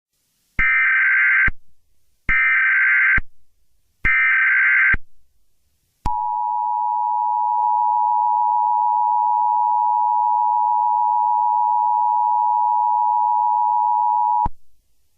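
Emergency Alert System SAME header: three short bursts of warbling data tones, each just under a second, followed about six seconds in by the two-tone EAS attention signal, held steady for about eight seconds and cut off suddenly, announcing an emergency message.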